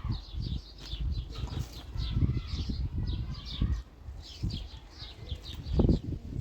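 Small birds chirping in quick, repeated high calls, over irregular low thuds, the loudest near the end.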